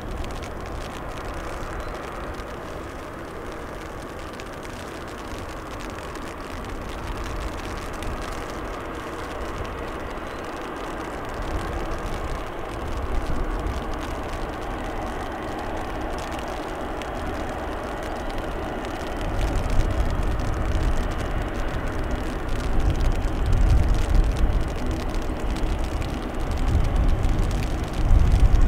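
Boeing 777F's twin GE90 turbofan engines running as the freighter rolls along the runway, with a steady jet whine. About two-thirds of the way in a louder, deeper rumble joins it and keeps building toward the end.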